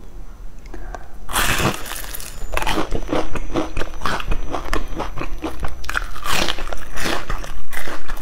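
Crispy crust of deep-fried glutinous rice cakes (youzhagao) crackling and crunching as a cake is bitten and chewed. It is a rapid run of sharp crackles that grows louder toward the end.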